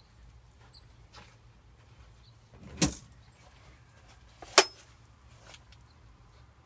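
Two sharp clacks about a second and a half apart, the second the louder, as a 33cc gas chainsaw is handled before a cold start; the engine is not running.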